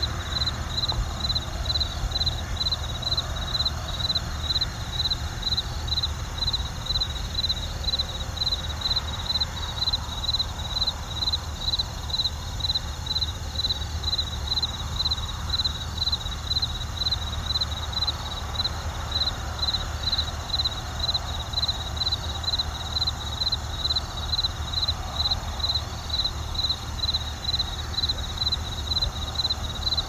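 Crickets chirping in a steady, even rhythm, a few high chirps a second, over a low steady rumble of distant traffic.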